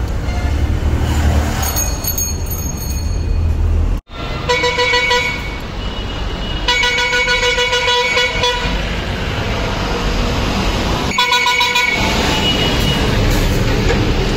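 Vehicle horn honking three times over the low rumble of road traffic: a short honk, a longer one of about two seconds, then another short one. The sound drops out for an instant about four seconds in.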